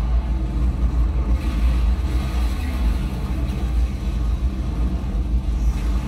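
Tornado sound effects from a disaster film playing on a TV: a loud, deep, steady wind noise heard through the TV's speakers.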